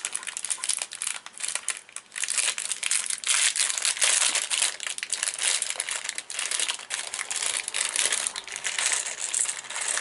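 A small clear plastic bag of resin charms being handled and opened, the plastic crinkling and crackling continuously. The crinkling grows louder about two seconds in.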